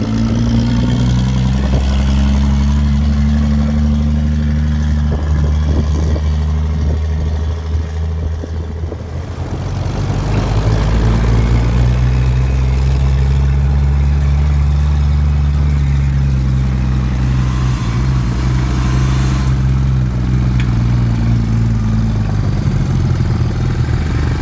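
Ford XR Falcon ute's engine running as the ute is driven off, its note rising and getting louder about ten seconds in and easing off near the end. The carburettor still needs tuning.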